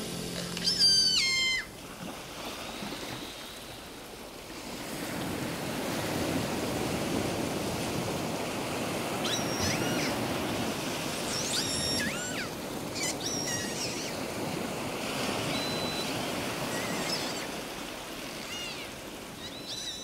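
Seagulls calling over waves breaking on a beach. A loud gull call about a second in, then scattered calls throughout, while the surf swells about five seconds in.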